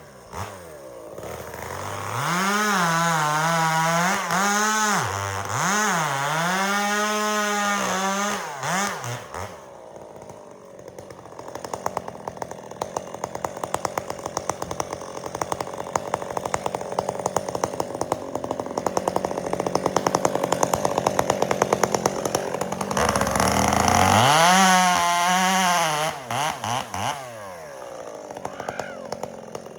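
Chainsaw revving up and down, then running under load for about ten seconds at a lower, pulsing note as it cuts through a log. It revs freely again near the end and then drops back.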